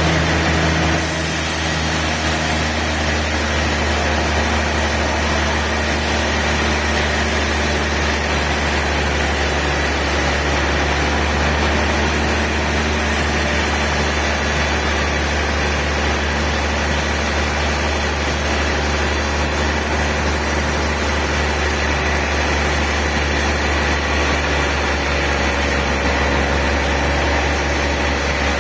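Sawmill machinery running with a steady low drone, its pitch and level unchanging after a slight shift about a second in.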